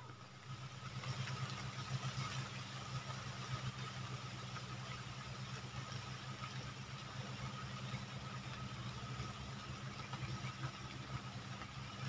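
A small engine running steadily with a constant low hum, under the even rush of fast-flowing floodwater.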